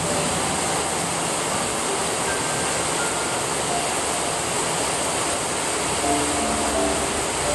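Steady hiss of falling rain, with soft, sparse notes of gentle background music over it.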